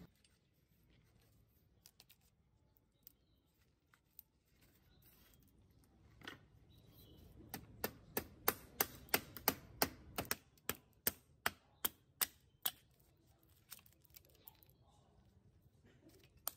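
A hammer tapping on the metal front end of a rusty children's bicycle: a run of sharp taps, about three a second, through the middle, then a few scattered ones.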